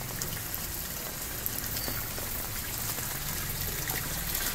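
Steady rain falling, with rainwater pouring from a PVC inlet pipe into a gravel-filled rainwater-harvesting recharge pit.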